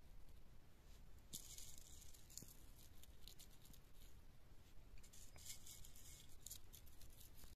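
Faint dry crackling and rustling in two short spells, about a second in and again about five seconds in, as dried rosebuds are handled and pressed onto the top of a cake.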